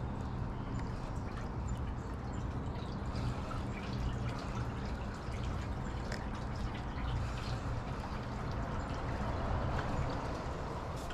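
Water lapping and trickling against a boat hull, with scattered small ticks and a steady low hum underneath.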